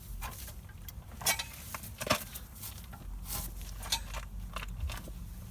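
A handful of irregular sharp metallic clicks and knocks from a socket wrench, loosened bolts and the brake caliper carrier on a Jaguar XJ X300, as the carrier is unbolted and taken off the hub.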